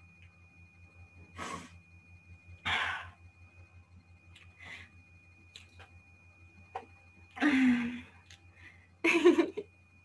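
A woman's breaths and sniffs, three short breathy rushes in the first five seconds, picked up by a laptop microphone over a steady low hum. Near the end come two short voiced sounds from her before she speaks again.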